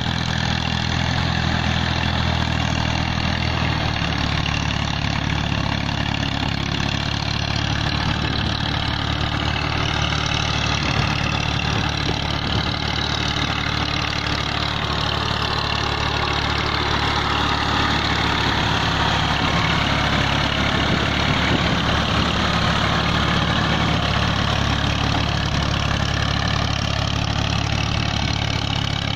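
Massey Ferguson 240 tractor's three-cylinder diesel engine running steadily under load as it drags a plank leveller and cultivator through a flooded rice paddy. Over it is a steady wash of churned water.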